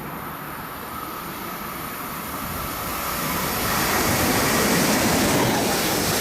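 A train approaching and passing on the line, its running noise swelling from about three seconds in and staying loud.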